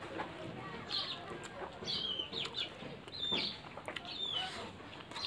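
Chickens calling nearby: short, high, falling calls about once a second. Under them come scattered small clicks and smacks of eating rice by hand.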